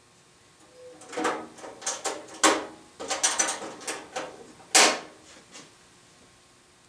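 Metal clanks and rattles as parts are handled and fitted on a Hitachi CB75F bandsaw, with a few short ringing knocks, the loudest about two and a half seconds in and near five seconds.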